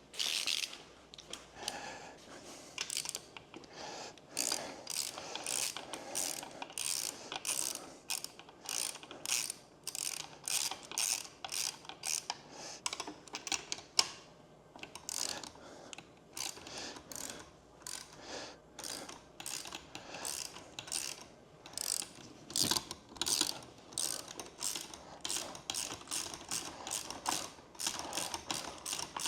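Hand ratchet wrench clicking in repeated strokes, a couple of clicks a second, as a fastener is worked on the engine, with a short pause and a single louder knock about halfway.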